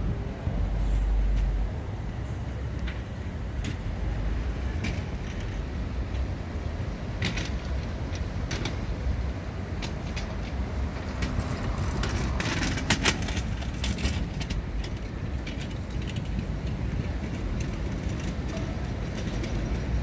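Busy city street traffic: the steady noise of cars idling and passing at an intersection, with a low rumble near the start and scattered sharp clicks, a cluster of them about two-thirds of the way through.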